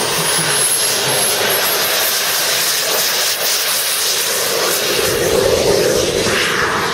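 An RC model jet's ATJ gas turbine engine running in flight: a steady jet rush with a thin high turbine whine that climbs in pitch over the first few seconds, and the sound swells a little about five seconds in.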